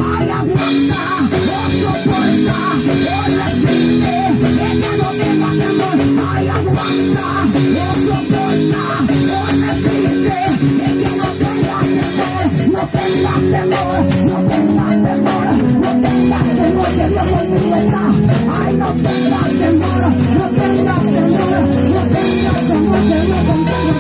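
Loud live band music: congas, a drum kit and a metal güira scraper playing with pitched instruments.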